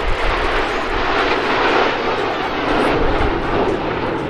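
Formation of Canadair CT-114 Tutor jets flying overhead, their single turbojet engines making a steady, rushing jet noise.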